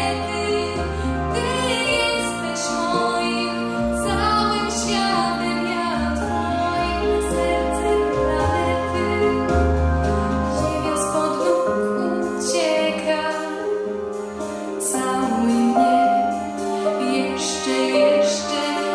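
A young woman singing a slow pop ballad into a handheld microphone over an instrumental backing, with a bass line that drops out about halfway through.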